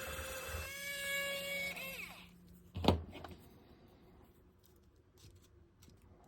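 Small electric drill running with a steady whine, enlarging small mounting holes, then spinning down about two seconds in. A sharp click follows just afterwards, then a few faint ticks.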